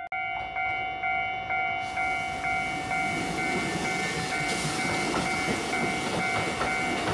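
A Japanese railway level-crossing bell rings steadily, about two dings a second. From about two seconds in, a Kotoden electric commuter train passes over the crossing and its rushing rumble rises under the bell.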